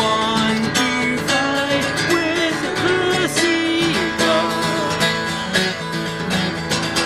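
Music: a song led by acoustic guitar, with a gliding melody line over the accompaniment.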